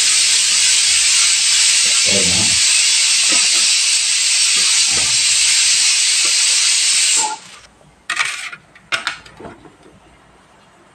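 Steady loud hiss of escaping steam that cuts off abruptly about seven seconds in. Beneath it are soft knocks of a potato being pushed across a wooden chips slicer.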